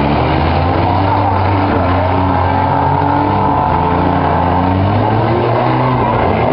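Several compact-car engines running and revving at once, their pitches rising and falling over one another, with no clear crash impacts.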